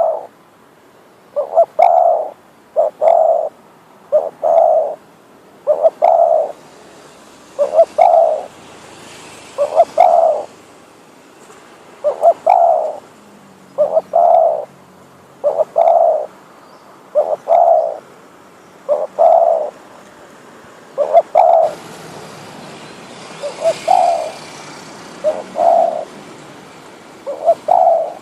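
Spotted dove, a trained decoy bird, cooing over and over: short phrases of two or three low coos, repeated about every one and a half seconds.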